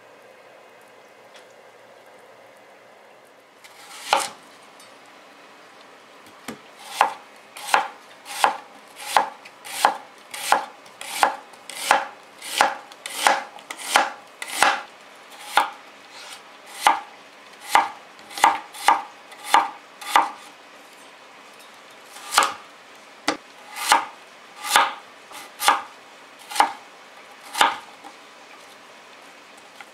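Kitchen knife chopping onion and daikon radish on a plastic cutting board: sharp knocks of the blade hitting the board, starting a few seconds in and going on at a steady pace of about one or two cuts a second, with a short pause partway.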